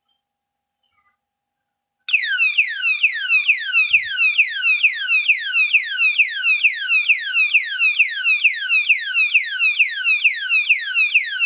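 Anti-theft alarm padlock's siren set off about two seconds in: a very loud electronic wail of quickly repeating falling sweeps, about two and a half a second.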